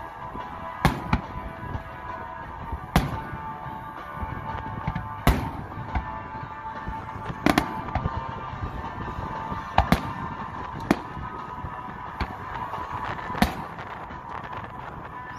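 Aerial fireworks shells bursting in a series of sharp bangs, roughly one every two seconds, some coming in quick pairs.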